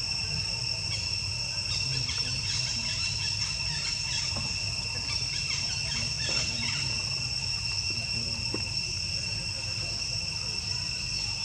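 Insects, crickets, trilling as one continuous high tone, over a low rumble. Faint short chirps come and go in the first half.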